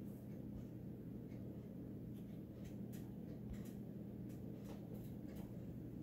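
Steady low electrical hum, with a scatter of faint, sharp light clicks through the middle few seconds.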